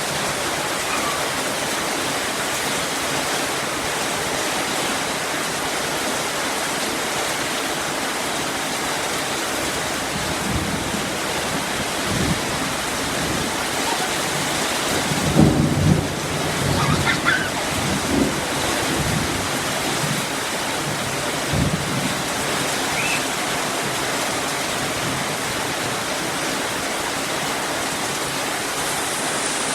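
Steady rain falling, a dense even hiss, with a few short low rumbles about halfway through.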